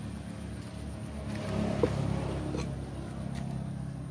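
A steady low motor hum runs underneath, with a few sharp clicks from a knife working on a wooden chopping block as an eel is slit open; the loudest click comes a little under two seconds in.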